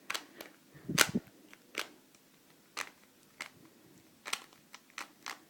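Plastic Rubik's cube being twisted: a run of sharp clicks and clacks at irregular spacing, roughly one or two a second, the loudest about a second in.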